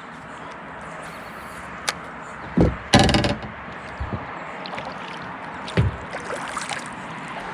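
River water running around a kayak, a steady rushing hiss. There are low thumps about two and a half and six seconds in, and a short loud rattle about three seconds in.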